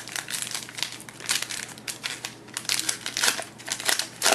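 A trading-card pack wrapper crinkling and crackling as it is torn open and handled, in a quick, irregular run of sharp crackles.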